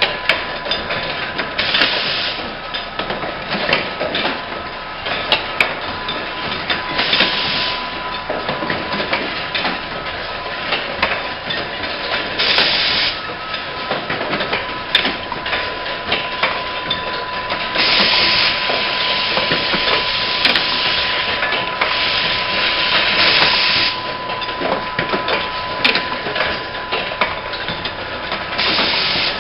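Insulin syringe assembly machine running, a continuous rapid clatter of metal and plastic parts being fed, clamped and pushed along its tracks. Bursts of air hiss from its pneumatic cylinders come every few seconds over a steady high whine.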